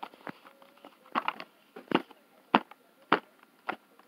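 A string of sharp taps and clicks from handling a smartphone and its box contents, about one every half second, loudest near the middle.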